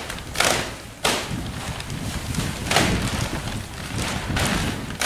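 Heavy black polythene silage sheet being pulled and gathered, crackling and rustling in a few sharp bursts, the loudest right at the end.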